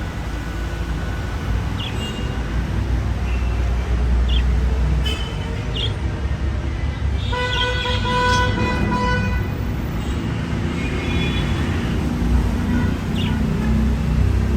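Budgerigars give short, high chirps every second or two over a steady low rumble. Around the middle a steady horn-like tone sounds for about two seconds.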